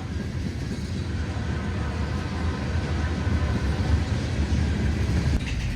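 Freight train going by, a steady low rumble of the locomotive and railcars.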